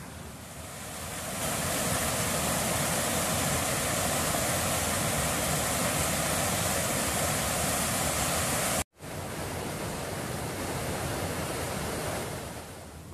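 Steady rush of river water pouring over a small weir. It breaks off for an instant about nine seconds in, then carries on a little quieter and fades near the end.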